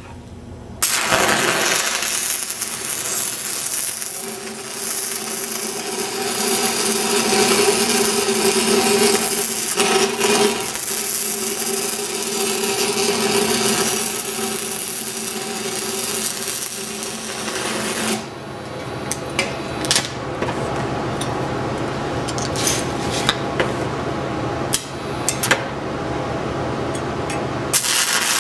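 Stick-welding arc on a downhill root pass in pipe, struck about a second in and crackling steadily. From about two-thirds of the way through, the crackle thins to scattered sharp pops over a steady low hum.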